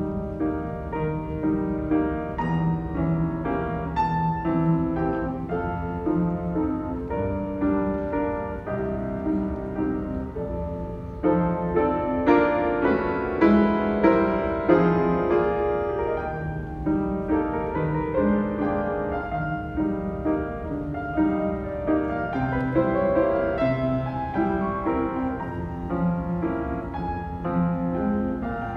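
Solo piano piece played with many held, overlapping notes; it grows louder about eleven seconds in.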